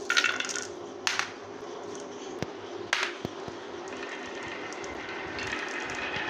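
A cluster of marbles clatters as it is released, then the marbles roll down the wavy grooves of a sloped wooden board, a steady rolling rattle that builds from about four seconds in, with scattered sharp clicks as they knock against each other and the groove walls.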